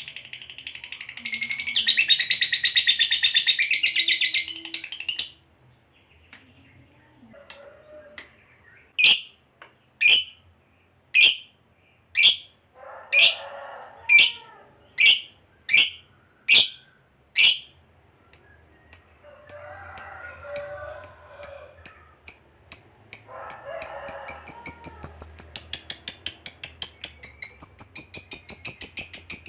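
Fischer's lovebird chattering: a long, fast buzzing trill for about four seconds, then a string of single sharp calls about one a second, then quick chirps that speed up into another long trill near the end. This is the long 'ngekek' chatter that keepers play to set other lovebirds singing.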